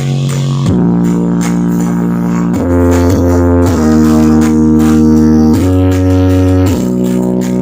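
Loud music played through a parade sound-system rig: held bass notes and chords that change pitch every second or two.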